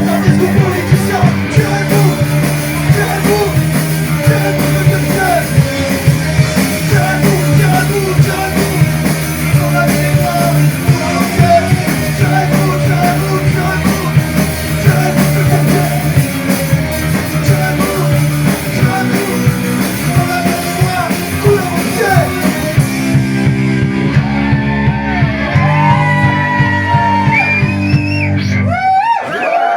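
Live rock band playing loud, with drums, electric guitar and bass and shouted singing. Near the end the cymbals and beat drop out, leaving held chords and high gliding squeals as the song finishes.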